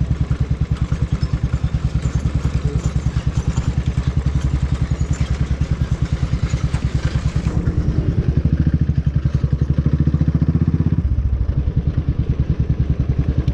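Motorcycle engine running at low road speed with an even, fast pulsing beat, with rattling over a rough, bumpy road in the first half. About halfway through the rattle dies down and the engine note steadies, with a brief dip in the low end near the end.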